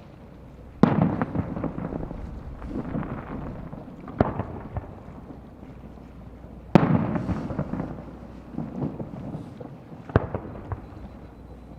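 Aerial fireworks shells bursting. Two big booms, about a second in and again near seven seconds, are each followed by a few seconds of crackling and rumbling echo. Single smaller sharp bangs come around four and ten seconds in.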